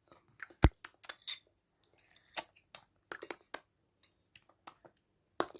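A young child grinding their teeth: irregular short, sharp creaking squeaks and clicks of tooth on tooth, with gaps between. The loudest come about half a second in and near the end.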